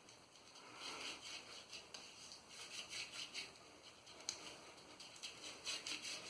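Fingers rubbing shaving-soap lather into two-day stubble: faint, repeated soft scrubbing strokes, with one sharp click about four seconds in.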